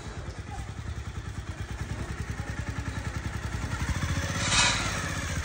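A motor engine running, a low rapid pulsing rumble that grows slowly louder, with a brief loud rushing noise about four and a half seconds in.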